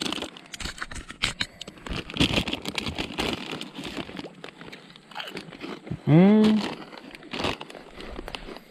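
Rustling, crinkling and knocking of camping gear being handled and unpacked, in irregular bursts of clicks and rustles. A short voiced sound rises and falls about six seconds in.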